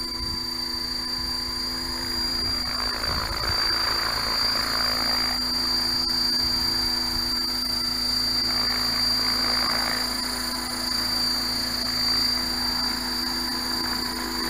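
HK T-Rex 600 radio-controlled helicopter running with its main rotor spinning near the ground: a steady mechanical whine with a high-pitched tone over it, and the rotor noise swelling twice.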